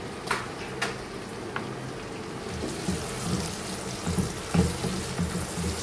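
Onions and tomatoes sizzling in hot oil in a cooking pan, with a few light clicks near the start and irregular low knocks in the second half as the hiss builds.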